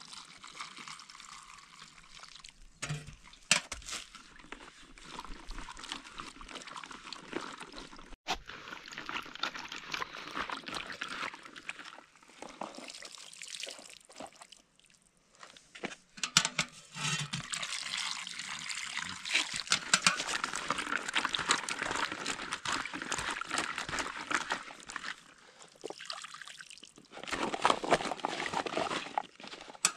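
Water pouring and trickling on and off, with a few sharp knocks.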